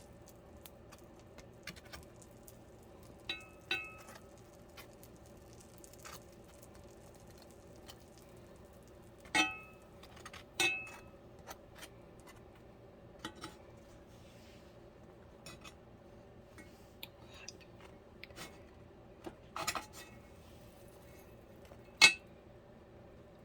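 Dishes and cutlery clinking: scattered sharp clinks, some ringing briefly, the loudest near the end, over a faint steady hum.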